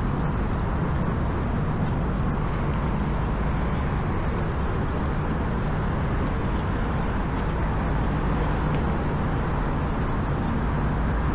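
Steady outdoor city ambience dominated by a continuous hum of road traffic, even in level throughout.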